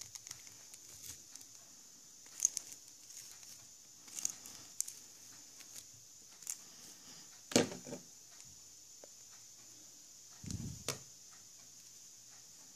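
Plastic hairbrush raking through a doll's synthetic hair, with scattered soft scratchy strokes, rustles and faint clicks as the hair is brushed and gathered by hand. The loudest are a sharp stroke about seven and a half seconds in and a dull knock with a click near eleven seconds.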